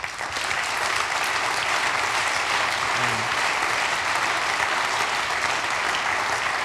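Audience applauding, a dense steady clapping that starts suddenly.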